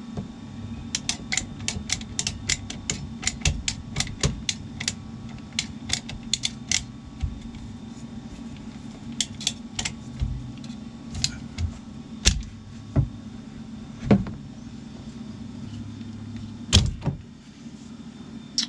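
Sharp clicks and taps of plumbing fittings and hand tools being worked: a quick run of a few clicks a second for several seconds, then scattered knocks, over a steady low hum.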